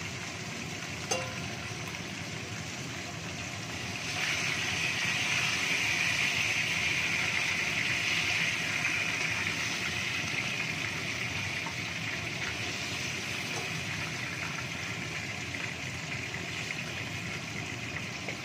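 Flour-dusted fish pieces sizzling in hot oil in a wok. The sizzle swells louder about four seconds in, then slowly eases off, with a single light tap about a second in.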